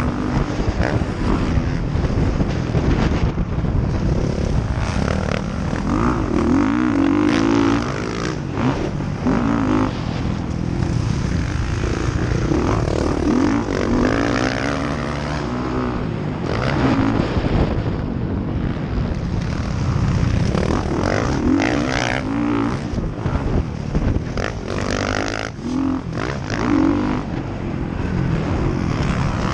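Dirt bike engine revving hard and repeatedly, its pitch climbing and falling again and again as the rider accelerates, shifts and backs off, with wind rushing over the microphone.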